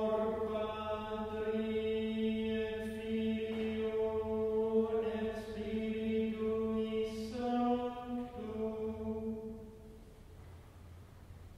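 Singers chanting a Latin psalm verse in unison on one sustained reciting tone, rising briefly in pitch for the cadence about seven seconds in. The chant ends about nine seconds in, leaving a quiet pause.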